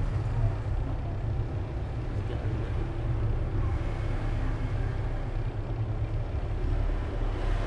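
Steady low rumble of background noise, with nothing standing out above it.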